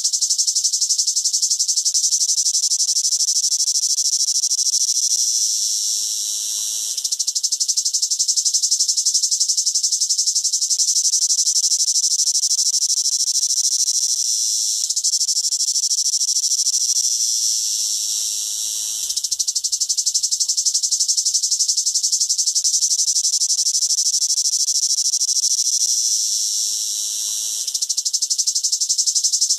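Cicada singing: a loud, continuous high-pitched buzz with a rapid pulse. It eases off and wavers briefly three times, roughly every ten seconds, then returns to full strength.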